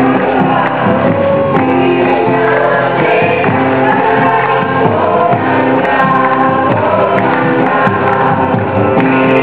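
Live devotional bhajan: voices singing a melody over instrumental accompaniment, loud and continuous.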